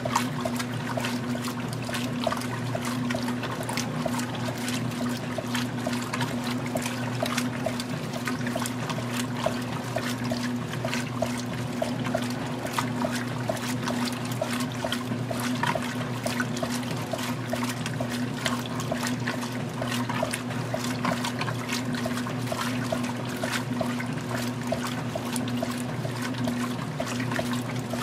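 Magic Chef 20-pound top-load washer agitating a mixed medium load in the wash stage: water sloshing and swishing as the agitator churns back and forth, over a steady motor hum with a regular light ticking.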